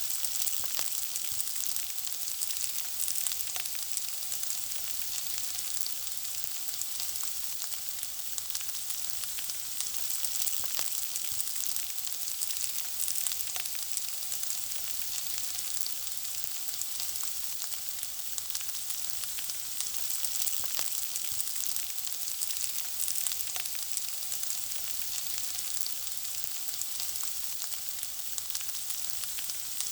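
Food frying in hot oil: a steady high sizzle with dense, irregular crackling pops.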